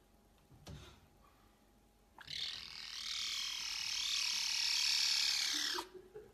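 Caracal kitten giving one long, raspy meow of about three and a half seconds, starting about two seconds in.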